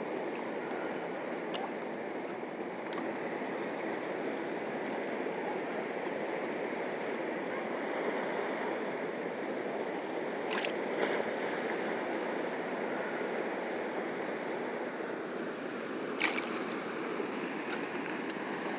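Steady rushing outdoor background noise, with two brief sharp clicks about ten and sixteen seconds in.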